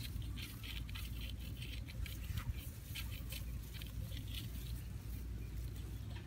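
Light rustling with scattered small crackles over a steady low rumble.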